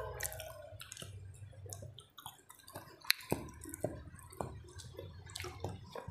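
Wet mouth sounds of a person chewing a mouthful of rice and fish: irregular lip smacks and clicks, several a second.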